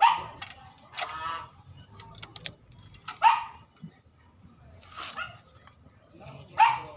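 An animal calling: short, sharp cries about five times, the loudest right at the start, about three seconds in and near the end.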